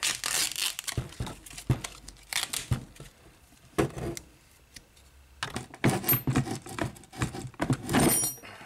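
Tape wrapping being torn and peeled off a demolition hammer's housing, in several rough tearing and crinkling bursts. Mixed in are clicks, knocks and rattles as the housing parts are handled and pulled apart.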